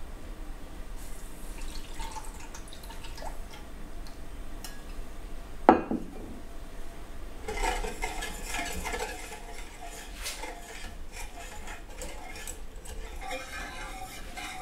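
A wire whisk beating milk, egg yolk, sugar and butter in a hammered stainless steel saucepan, with fast metal clinking and scraping against the pan from about seven and a half seconds in. Before that there are quieter kitchen handling sounds as the milk goes in, and one sharp loud knock about six seconds in.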